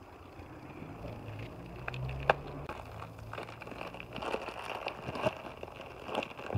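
A small plastic bag of wall plugs and screws being handled and pulled open, crinkling, with one sharp click about two seconds in and scattered small ticks after it.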